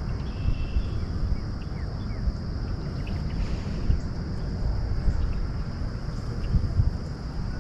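Outdoor ambience by a pond: a low wind rumble on the microphone, with a steady faint high hum and a few faint chirps early on.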